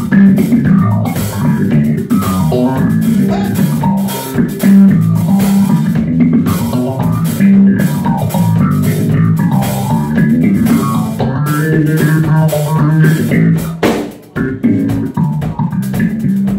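Live funk band playing an instrumental passage: electric bass guitar, electric guitar and drum kit, with the bass line strong. The band breaks off briefly about fourteen seconds in, then comes back in.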